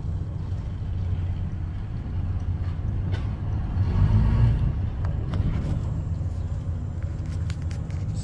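Ford 7.3 L Power Stroke turbo-diesel V8 idling steadily, heard close up in the engine bay, with a brief louder rumble about four seconds in.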